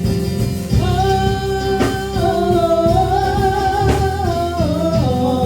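Gospel worship song with live band accompaniment: a single voice holds one long sung note that steps down in pitch toward the end, over steady low instrumental backing with a beat about every two seconds.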